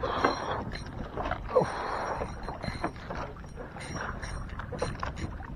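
Wind and water sloshing against a small boat's hull, with scattered light knocks and clicks.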